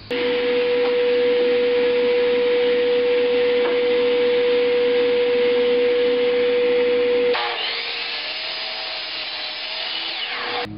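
DeWalt miter saw running with a steady whine while it crosscuts half-inch MDF strips to square their ends. About seven seconds in, the sound drops abruptly to a quieter, wavering whine.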